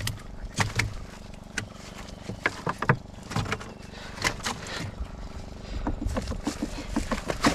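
Irregular short knocks, clicks and cloth rustling as a caught fish is held in a sack and worked on against the wooden hull of a dugout boat, over a steady low hum.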